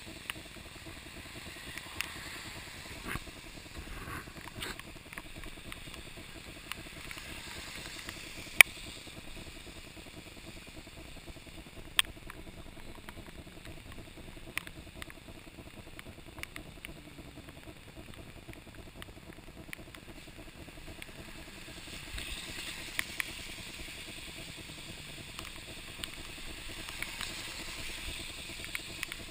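Bicycle tyres hissing along a wet road in the rain, with scattered sharp clicks and knocks, the loudest about eight and a half seconds in; the hiss swells a little from about twenty-two seconds on.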